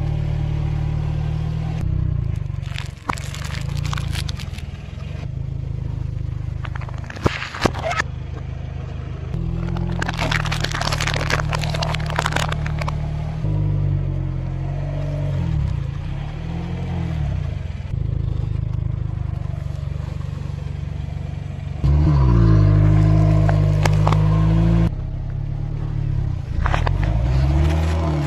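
A car's tyre rolling slowly over objects on asphalt, crushing them with several crackling crunches: a plastic pop tube toy and chocolate wafer bars, then a Coca-Cola bottle that bursts and sprays near the end. Under the crunches a car engine runs steadily and revs up and down several times.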